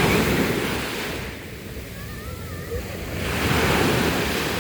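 Sea waves washing onto the shore. The surf swells twice, once at the start and again about three seconds in, easing off in between.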